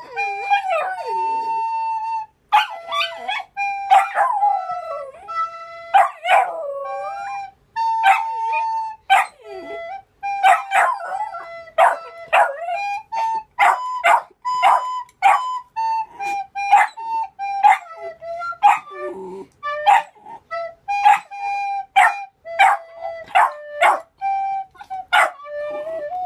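A pitbull puppy howls along in wavering, gliding tones to a plastic school recorder playing simple steady notes. The recorder plays a run of many short notes.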